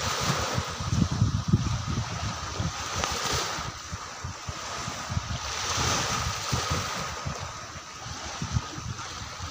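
Wind gusting over the microphone, an irregular low buffeting rumble over a steady hiss that swells and fades every couple of seconds.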